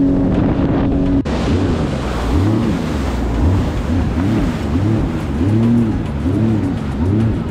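Jet ski engine running at a steady pitch. About a second in it changes abruptly, and from then on its pitch rises and falls over and over, a little more than once a second, over rushing noise.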